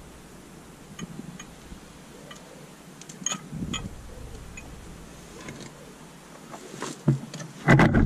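Light metallic clicks and taps from hands working at a car's front brake caliper while fitting brake pads, then two heavier knocks near the end.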